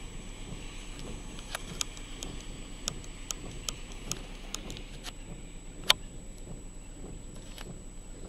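Steady rain with wind buffeting the microphone, and scattered sharp ticks at uneven intervals, the loudest about six seconds in.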